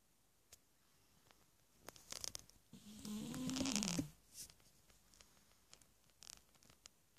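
Sleeping cat snoring: one drawn-out buzzy snore about three seconds in, lasting about a second and dropping in pitch at its end, with faint clicks and breath sounds just before it and a short breathy hiss near the end.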